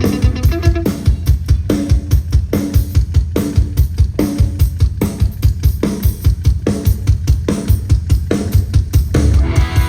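Live rock band playing, with the drum kit carrying a steady beat of heavy kick drum and snare hits; an electric guitar comes in near the end.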